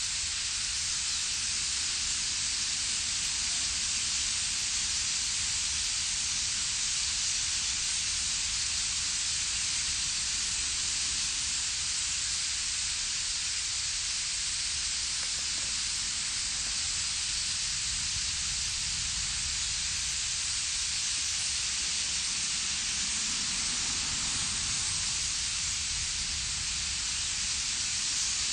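A steady, even hiss, strongest high up, with a faint low rumble beneath it. It does not change throughout.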